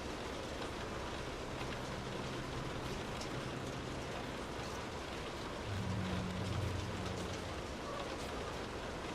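Steady rain falling on a car, heard from inside the cabin as a dense patter of drops. A low rumble swells briefly about six seconds in.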